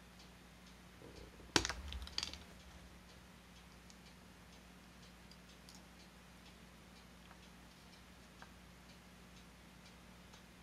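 Two sharp clicks about a second and a half in, roughly half a second apart, from small plastic model parts and a hand tool being handled on a work mat. Faint, regular ticking and a low steady hum run underneath.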